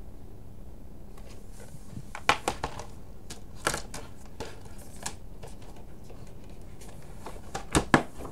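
Plastic Blu-ray case being handled on a desk: scattered clicks and taps, a few at a time, with a pair of sharper snaps near the end.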